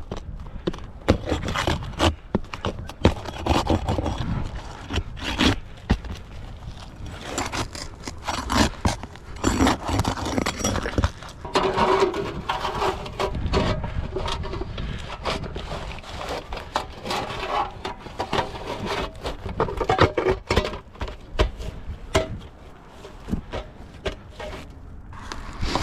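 Irregular scraping with frequent sharp knocks and taps from roofing work: tools and materials being handled on a roof while a dryer roof vent is fitted.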